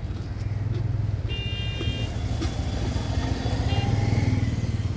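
Motor vehicle engine running with a low drone that swells twice, with brief high-pitched tones a second or so in and again near the end.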